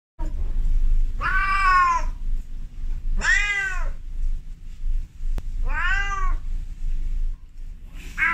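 Calico female cat in heat calling: three drawn-out meows, each rising then falling in pitch, with a fourth starting near the end. It is a mating call, typical of a queen in heat.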